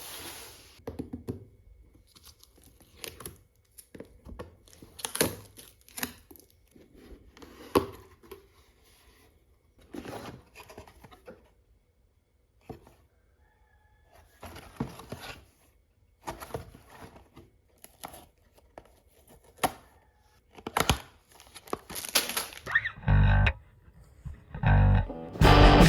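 Scattered clicks and clatters of plastic LEGO bricks being handled and pressed together, in short clusters with pauses. About 23 seconds in, loud distorted electric guitar music with drums starts.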